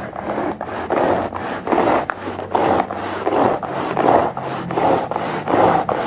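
Handheld manual carpet sweeper, fitted with a damp sponge strip, pushed back and forth over a shaggy rug: repeated rubbing strokes, about two a second.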